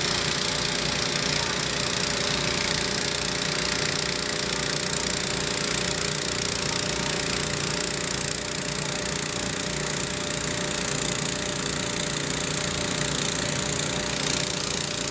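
Heavy machinery engines running steadily: a constant drone with several steady tones and no change in speed.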